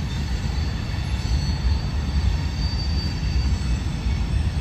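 Train rolling across a railway overpass: a steady low rumble with a thin, high wheel squeal over it.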